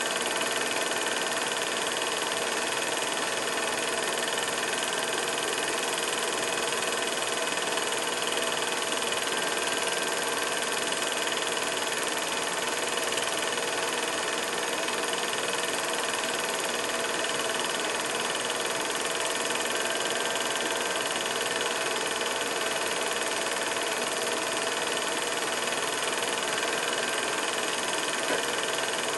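Steady hiss with a hum of several faint steady tones, unchanging throughout and without speech or music: the running noise of an old film or tape recording.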